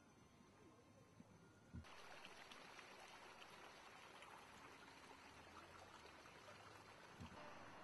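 Faint water of a shallow stream running over rocks, setting in suddenly about two seconds in as an even hiss, after near silence. Two soft low thumps, one as the water sound begins and one near the end.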